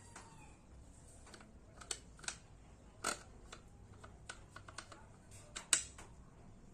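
Irregular plastic clicks and knocks from a toilet fill valve being handled: its float cup rotated to unlock and its ribbed plastic shaft slid to a new height. Several come in quick succession in the second half, the loudest near the end.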